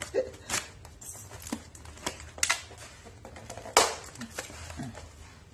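Hands tearing open a cardboard box packed around a styrofoam box: a handful of sharp tearing and scraping sounds of tape and cardboard, the loudest a little before four seconds in.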